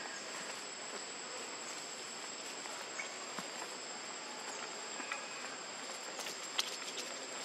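Steady high-pitched drone of insects, two unchanging tones, with a few light clicks and rustles in dry leaves.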